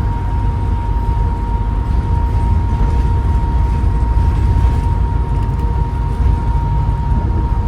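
Bus diesel engine and drivetrain heard from on board, a heavy steady low rumble with a thin, constant high whine over it, the whine being what the uploader calls turbo whine.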